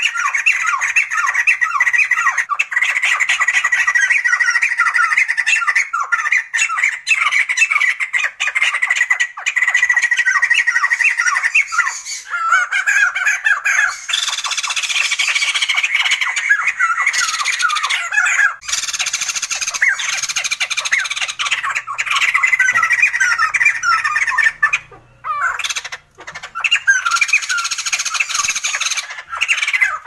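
Sumatran laughingthrush calling loudly: a long run of rapid, squawking chattering notes, broken by a few short gaps near the end.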